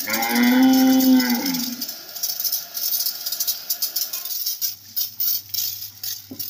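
A water jet from a hose sprays onto a tractor's wheel and hitch: a steady hiss with spatter. Near the start a long, drawn-out call lasts nearly two seconds and falls away at its end.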